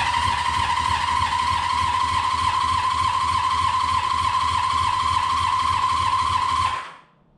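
Honda CB500 inline-four engine cranking over on its electric starter without firing: a steady high starter whine over an even low pulsing, stopping near the end. It spins over smoothly and easily, which the owner finds almost too good and somewhat concerning as to whether it has good compression.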